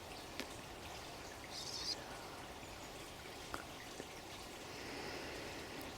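Running water trickling steadily and quietly, with a few sharp drip-like ticks and a brief high hiss about two seconds in.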